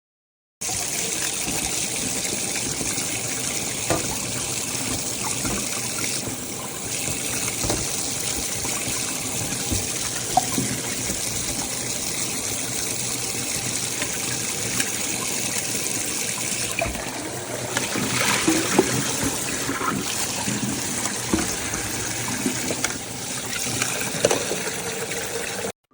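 Electric tea kettle heating water: a steady hiss of water nearing the boil, with faint bubbling and small ticks, starting abruptly and cutting off just before the end.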